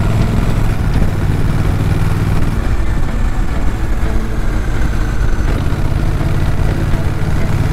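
Honda Rebel 1100's 1084 cc parallel-twin engine and exhaust, heard from the rider's seat while cruising at about 55 km/h. The steady engine note loosens for a few seconds in the middle, then settles again.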